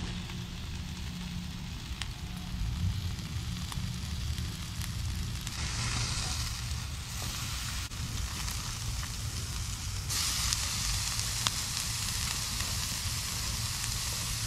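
Meat sizzling over charcoal on a grill grate, with a few sharp pops of fat; the sizzle gets louder about ten seconds in.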